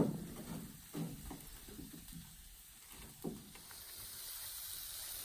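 Food frying over a campfire: a faint sizzle that swells in the second half. A few soft knocks, the sharpest at the very start.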